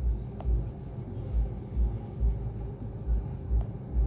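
Low rumble inside a car waiting in traffic, with a regular deep thud a little more than twice a second.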